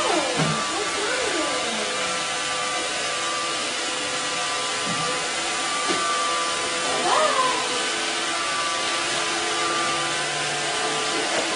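A robot vacuum cleaner running with a steady whir and hum, while a cat meows twice, once at the start and again about seven seconds in.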